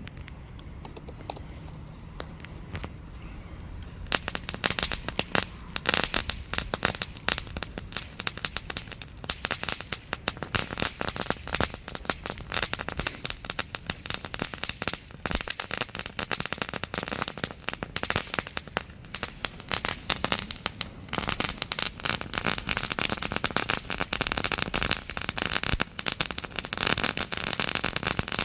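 Category 1 consumer firework crackling: a dense, rapid stream of small sharp pops that sets in about four seconds in and keeps going, getting a little thicker near the end.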